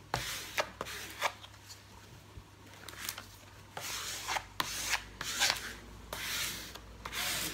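Hand-held pad rubbing the protective cover sheet back down over a glued diamond painting canvas: a series of swishing strokes, sparse at first, then quicker and louder in the second half.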